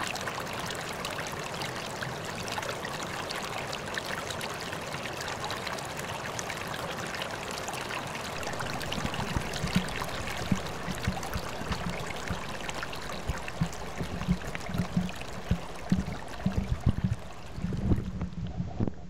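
Flowing stream water, a steady rushing hiss. From about halfway, irregular low thuds and bumps join in and grow louder.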